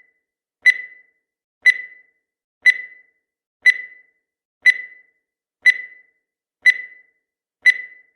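Countdown timer sound effect: a short, high electronic beep once every second, eight evenly spaced beeps, each fading quickly.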